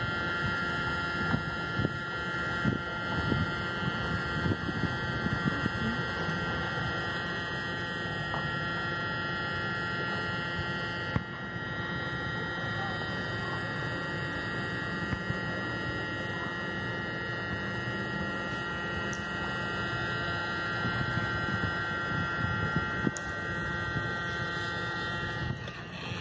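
Steady low rumble of a car's engine and road noise heard from inside the cabin while rolling slowly, with a faint constant electrical whine.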